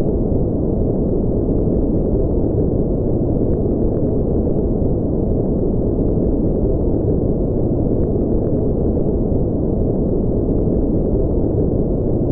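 Steady, deep rumbling noise like brown noise: an ambient spaceship engine sound effect that holds the same level throughout, without pitch or change.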